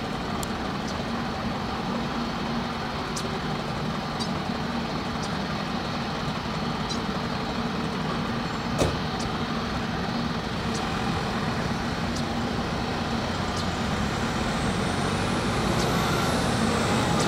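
Bombardier CS300's Pratt & Whitney PW1500G geared turbofans at takeoff thrust: a steady rushing roar through lift-off and climb-out, growing slightly louder near the end. A single sharp click comes a little past halfway.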